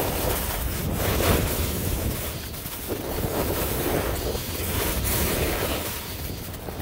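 Wind buffeting the microphone while skiing downhill, with the hiss of skis scraping over packed snow that swells and fades with each turn.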